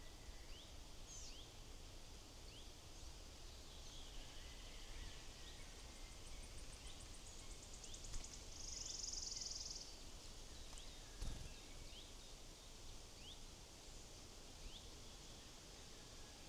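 Wild woodland birds calling faintly: scattered short, high chirps throughout, a fast high trill about six seconds in followed by a buzzy call, and a single sharp knock about eleven seconds in.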